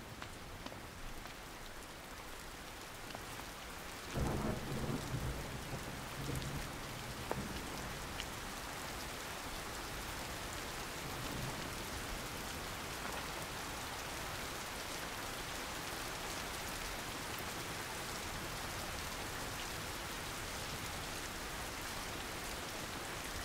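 Steady rain falling, a little heavier after the first few seconds, with a low rumble of thunder about four seconds in that lasts a few seconds.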